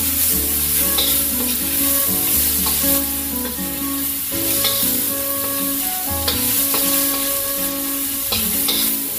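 Tomato slices, onion and spices sizzling in hot oil in a stainless steel wok, stirred and scraped around with a metal spatula. Background music plays under it.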